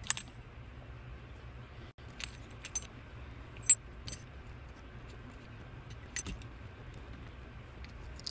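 Light metallic clicks and taps of a screwdriver, small screws and a cast-metal cover on a twin-barrel carburetor being taken apart by hand: about half a dozen scattered clicks, the sharpest about three and a half seconds in, over a low steady hum.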